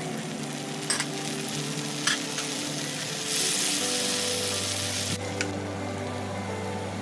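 Tomato wedges and garlic sizzling in hot olive oil in a frying pan, with two sharp clicks about one and two seconds in. The sizzle swells loudest for a couple of seconds around the middle as the tomatoes are stirred.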